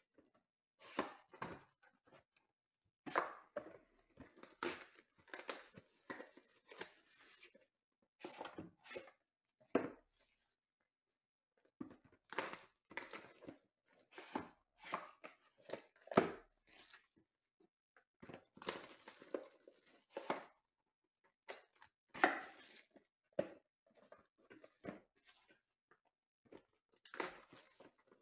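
Plastic shrink wrap being torn and peeled off a cardboard sports-card hobby box, crinkling in irregular bursts with short pauses. A couple of soft knocks come in among them.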